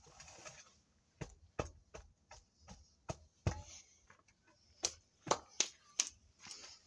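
A hand hoe's metal blade scraping across dry, loose soil, then a dozen or so sharp knocks as it strikes and tamps the earth.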